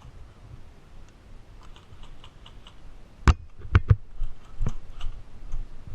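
A run of sharp cracks: four loud ones spaced irregularly over about a second and a half, starting about halfway through, with fainter ticks before and after.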